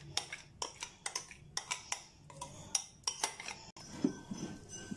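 A metal spoon clinking and scraping against a stainless steel bowl while mixing soft cooked dal into flour, in irregular sharp clicks that stop about three and a half seconds in.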